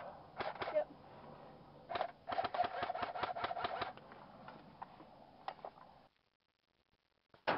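M14-style airsoft rifle firing: a few single sharp shots, then a rapid string of shots over a steady whine for about a second and a half, and one more shot later. The sound cuts out to silence about six seconds in.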